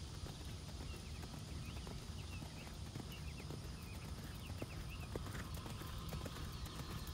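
Horse's hooves beating on dirt arena footing as it canters under a rider, a steady run of hoofbeats, with short high chirps in the background.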